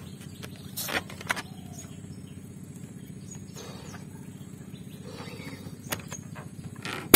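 A big latex balloon being blown up by mouth, with several separate puffs of breath into it and a few small clicks from handling. Right at the end, a sudden loud bang as the balloon bursts.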